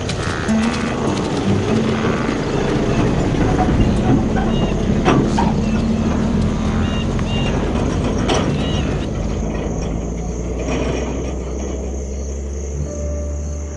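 A heavy truck driving along a dirt road, its engine and body loudest around the middle, with a couple of sharp knocks, then fading as it pulls away while a low engine hum lingers.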